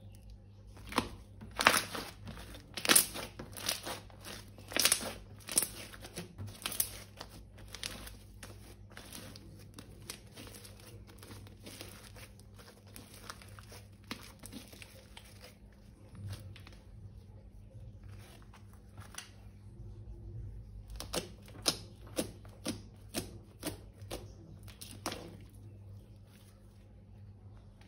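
Crinkling and sharp crackling clicks from slime-making materials being handled, coming in two clusters, one in the first several seconds and another a little after twenty seconds in, with quieter rustling between.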